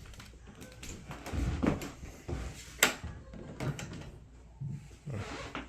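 A door being handled: a few dull knocks and thumps, with one sharp click about three seconds in.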